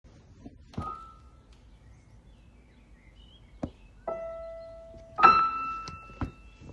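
Sparse improvised piano notes: a single note about four seconds in and a higher, louder one about a second later, each struck and left to ring and fade, with a few short knocks in between.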